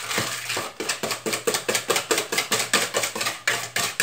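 Wire whisk beating egg, sugar and oil batter in a plastic bowl, the wires clicking and tapping against the bowl in rapid, even strokes, about six a second.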